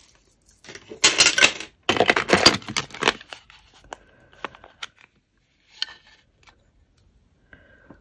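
Metal chains, beads and costume jewellery clinking and jangling against each other as hands rummage through a tub of jewellery. The jangling comes in two dense runs between about one and three seconds in, followed by a few light clicks.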